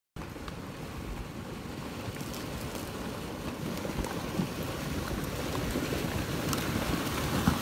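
A flash-flood debris front of logs and branches grinding forward: a steady rushing rumble with scattered cracks and knocks of wood, growing slowly louder.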